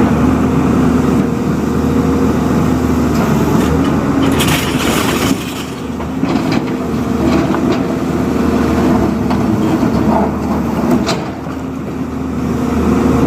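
JCB 3DX backhoe loader's diesel engine running steadily under work, easing off briefly twice, about five seconds in and again near the end.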